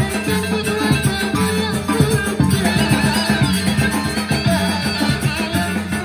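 A Sasak ale-ale band playing live: end-blown bamboo flutes carry a melody over a low sustained bass, drums and small percussion keeping a steady beat.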